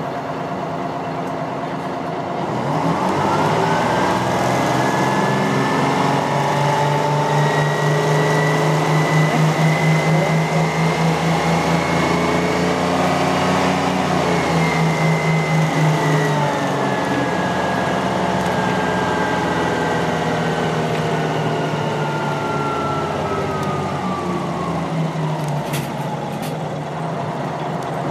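GM New Look T6H-5307N transit bus heard from inside the cabin as it accelerates. About two seconds in, its Detroit Diesel two-stroke engine revs up with a rising whine and pulls hard for several seconds. It then eases off, and the pitch slowly falls away near the end.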